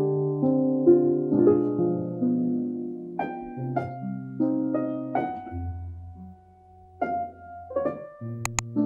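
Instrumental background music: a slow run of plucked or struck notes and chords, each dying away. Two sharp clicks come near the end.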